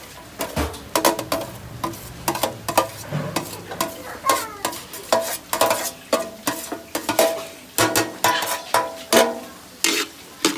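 Minced garlic sizzling in oil in a wok while chopped red onion is scraped in off a stainless steel tray with a metal spoon: many sharp clinks and scrapes of metal on metal, some ringing briefly, over the steady sizzle.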